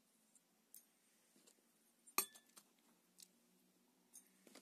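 Metal fidget spinner's six blades clicking and clinking as they are swung by hand into place around the centre: a scattered string of small clicks, the loudest a sharp clink a little over two seconds in that rings briefly.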